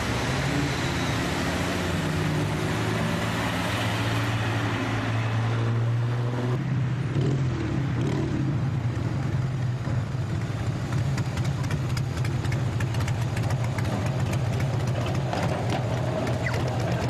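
Street traffic: a vehicle engine running with a steady low hum. From about ten seconds in, quick light clicking and rattling is heard over it.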